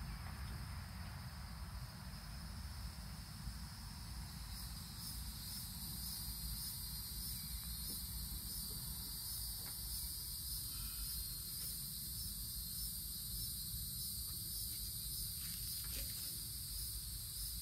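Insect chorus trilling steadily in high, pulsing bands, stronger from about four seconds in, over a low rumble. A few faint clicks near the end.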